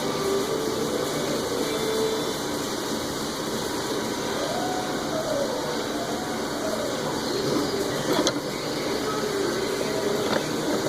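A machine running steadily, with a faint tone that wavers up and down, and two sharp clicks, about eight and ten seconds in.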